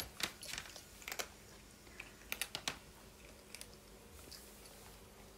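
Two cats crunching dry kibble from their bowls: irregular crunches and bites, coming thickest in the first few seconds and thinning out after.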